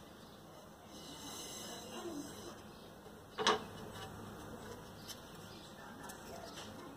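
Faint rustle of thin wooden strips being handled, with one sharp wooden knock about halfway through as a short piece of wood is set down on a wooden stump.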